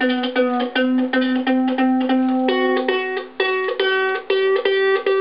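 A green ukulele being tuned by ear: one string plucked over and over at about four plucks a second while its peg is turned, then a higher string plucked repeatedly from about halfway through. The instrument is badly out of tune.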